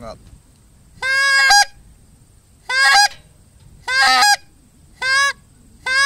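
Goose call blown by mouth, sounding five honks about a second apart. Each note rolls over from a low tone to a short higher one as the back of the tongue pops up.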